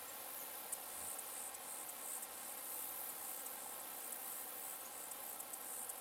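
A steady, very high-pitched chorus of insects chirring, swelling and easing now and then.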